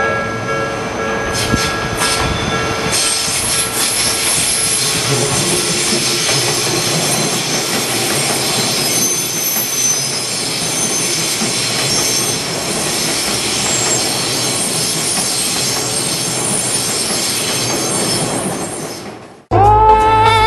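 Commuter train passing close by at a level crossing: a steady rush of wheels on rail, with thin high tones above it. It fades out suddenly about 19 seconds in, and music starts just before the end.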